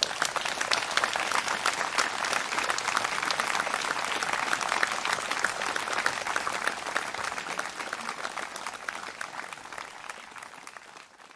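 Audience applauding, starting at once and slowly dying away near the end.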